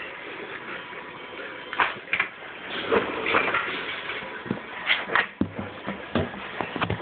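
Irregular knocks and clunks of objects being handled, with some scraping in between.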